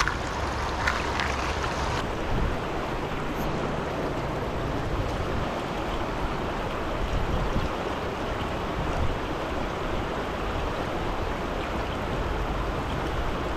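Steady rush of a shallow river's flowing water.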